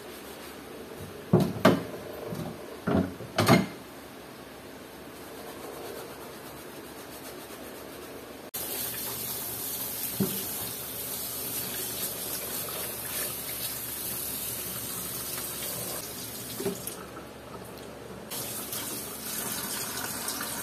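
Washing up in a stainless steel sink: a few clatters as a wooden cutting board is handled and scrubbed in the first few seconds, then the kitchen tap is turned on about eight seconds in and water runs steadily onto the board and dishes, with an occasional knock.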